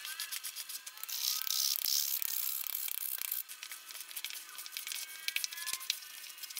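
A spoon stirring flour into dry, crumbly cake dough in a plastic bowl, scraping with rapid small clicks, then about halfway through hands rubbing and squeezing the crumbly dough with softer crackles.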